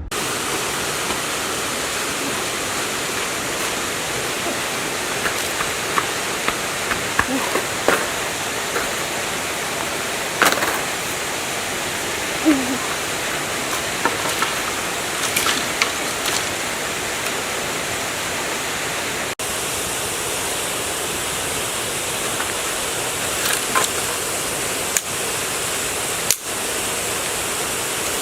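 A steady rushing hiss like running water, with scattered short clicks and taps over it.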